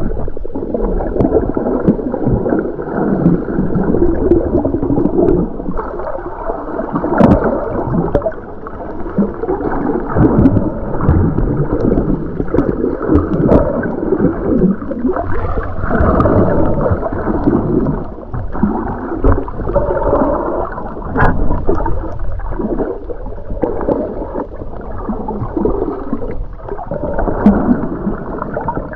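Muffled underwater water noise from a snorkeler swimming over a reef: uneven gurgling and churning, dull as if heard through a waterproof camera housing, with a few sharp clicks.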